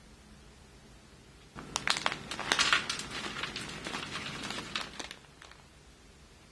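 Crinkling and crackling of a plastic snack pouch of bacon bits being opened and emptied. A dense run of crackles starts about a second and a half in and lasts about three and a half seconds.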